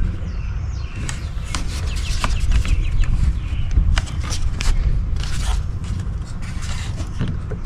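Plastic scraping and a string of sharp clicks as the locking clips of a 2015 Nissan Rogue's engine air filter housing are pushed down into place, over a steady low rumble.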